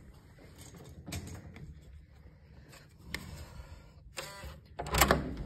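Electronic keycard lock on a hotel room door unlocking: a short whirring buzz about four seconds in after the card is held to it, then the handle clunks loudly as the door is opened near the end.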